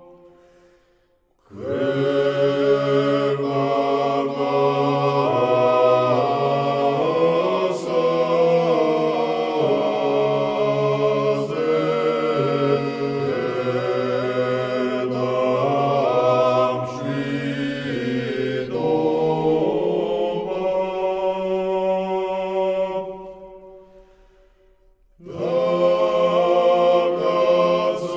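Unaccompanied choir singing Georgian church chant in three-part harmony, with long held chords. The phrase starts about a second and a half in and dies away a few seconds before the end; a new phrase begins after a short pause.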